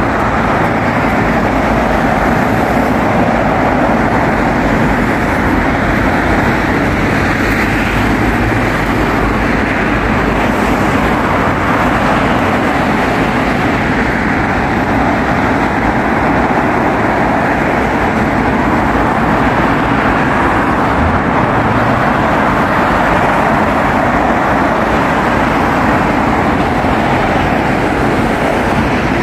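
Steady noise of heavy road traffic from a busy multi-lane highway, dense and unbroken, with no single vehicle standing out.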